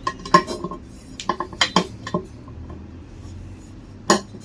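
Metal tools and metal pump parts clinking and tapping against each other in a string of sharp, short knocks with a brief ringing, mostly in the first two seconds and once more near the end.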